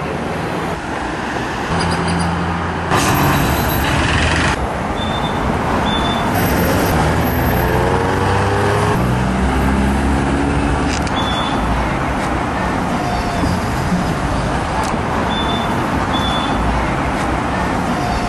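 Street traffic: vehicle engines running and passing, loud and steady, with a louder rush of noise about three seconds in lasting a second or so.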